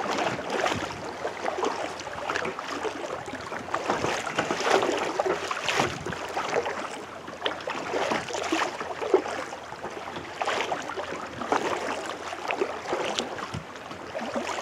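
Kayak paddle strokes splashing and dripping in the water, in repeated swells of splash.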